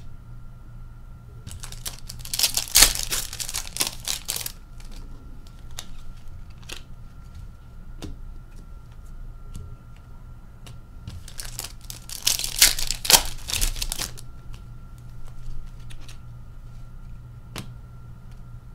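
Hockey card pack wrappers being torn open and crinkled, in two bursts about two seconds in and again about eleven seconds in. Light clicks and taps of cards being handled and laid down come between them.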